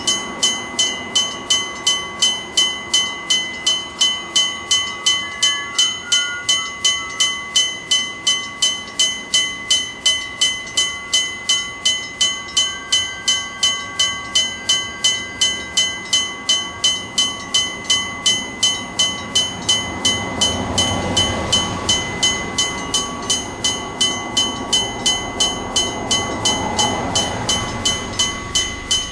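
Japanese level-crossing electric bell, a gong struck by an electrically driven hammer, ringing at a steady rapid beat of about three strikes a second. From about 20 seconds in, the low rumble of a passing train swells underneath the bell.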